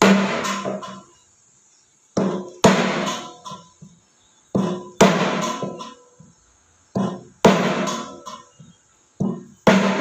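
Hammer blows on the drum shaft of a front-load washing machine, struck mostly in pairs every couple of seconds, with the metal ringing for about a second after each blow. The shaft is being driven through to push out a drum that is stuck fast.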